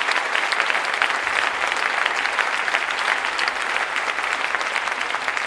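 Large audience applauding: dense, steady clapping from many hands, easing slightly near the end.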